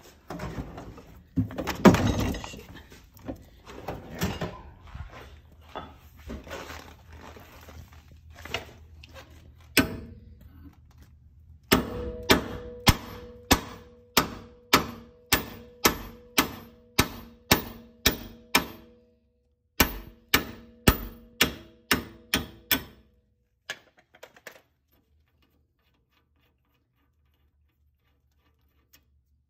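Hammer striking a wheel stud in a Ford Mustang front hub to drive the old press-fit stud out: a steady run of sharp blows, about two a second, each with a metallic ring from the hub. Before the blows start there are irregular knocks and clatter.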